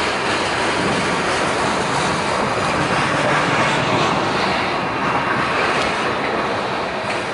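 Freight train rolling past at close range, a steady rumble and roar of wheels on rail and the passing cars and locomotives.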